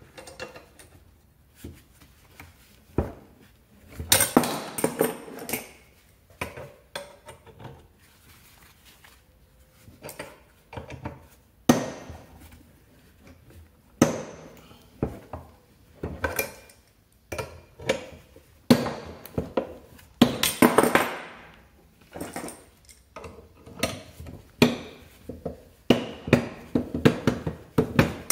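Irregular metallic clinks, clicks and knocks of tools and parts being handled on a Peugeot Vivacity 3 scooter's bare engine crankcase.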